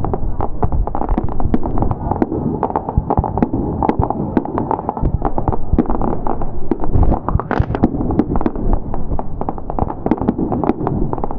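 Fireworks display: a dense, continuous run of bangs and crackling bursts, many overlapping, over a steady rumble.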